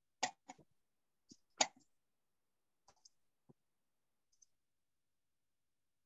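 A computer mouse clicking: a handful of faint, irregular clicks over the first four and a half seconds, the loudest about a second and a half in.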